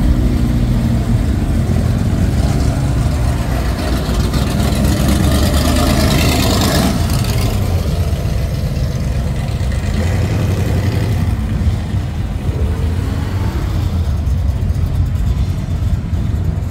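Car engine running with a steady low rumble. A rushing noise builds about four seconds in and cuts off abruptly near seven seconds.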